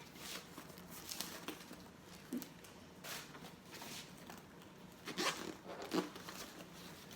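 Rustling and crinkling of the packing stuffing inside a new backpack as it is handled and pulled about, with two louder crinkles about five and six seconds in.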